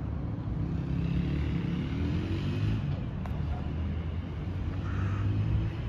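Cats growling low at each other in a face-off, a long drawn-out growl that keeps going with little break.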